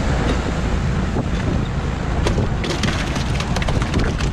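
A boat's motor running steadily with a low hum, mixed with wind noise on the microphone, and a scatter of light clicks and knocks in the second half.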